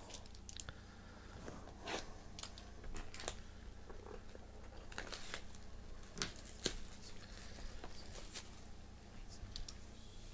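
Plastic shrink-wrap on a sealed trading-card box being picked at and torn off by hand: scattered crinkles and crackles, with two sharper snaps about six seconds in.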